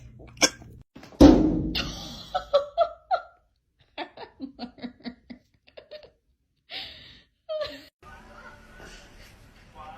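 A sudden loud thump just over a second in, then people laughing in short repeated bursts.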